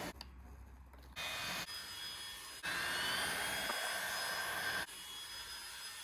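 Tefal X-Force Flex cordless stick vacuum running with a steady motor whine. The sound jumps abruptly in level several times: it is quietest in the first second and loudest with the whine from about halfway in.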